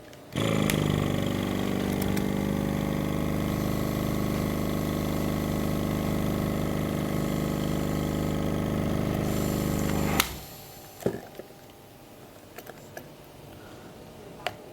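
SCU 70 12-volt oil-free diaphragm air compressor starting up and running at a steady pitch for about ten seconds, then stopping suddenly. A few light clicks follow.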